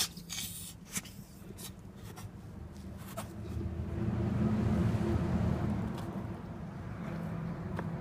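A Great Dane gnawing on something held between its paws: scattered scraping and sharp clicks. A low steady hum grows louder about halfway through, then eases off.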